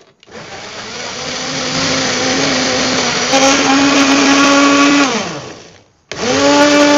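Electric countertop blender motor switched on and running for about five seconds as it crushes frozen mango cubes in yogurt, its hum stepping up in pitch partway through. It is switched off and winds down with a falling pitch, then is switched on again near the end.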